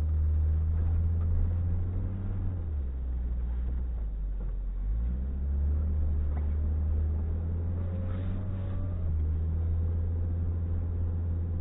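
A car's engine and road noise heard from inside its cabin while driving on a snowy road: a steady low hum that drops off about three seconds in and picks up again about five seconds in as the car pulls away.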